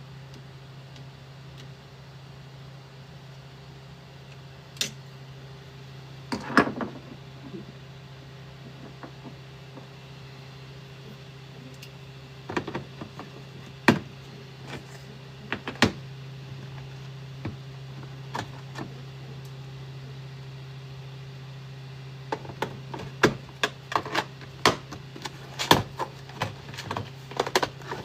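A steady low hum with scattered sharp clicks and knocks of hard objects over it, coming thick and fast in the last several seconds.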